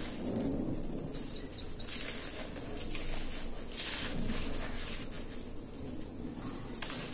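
Dry, gritty red dirt and crumbly red brick pieces being crushed and sifted through bare hands: irregular crunching and the soft patter of dust and grit falling onto the pile.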